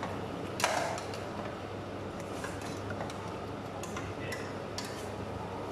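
Chicken pieces being stirred in a stainless steel pot: a scatter of light metal clicks and scrapes, with one sharp clink about half a second in, over a steady low hum.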